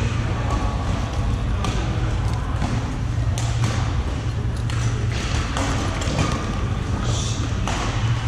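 Badminton racquets hitting shuttlecocks: sharp cracks at irregular intervals over a steady low hum, with faint voices.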